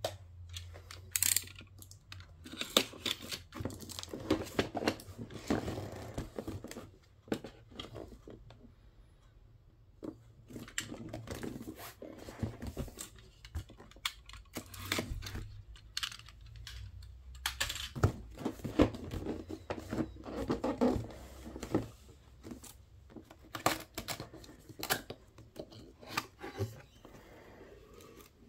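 Cardboard packaging of a speaker box being handled and opened: irregular rustling, scraping and sharp taps as the printed outer sleeve is worked off and the inner box flaps are folded open.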